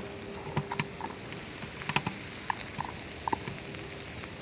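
Onion and garlic sizzling quietly in olive oil in a cast-iron skillet, with scattered small crackles and pops.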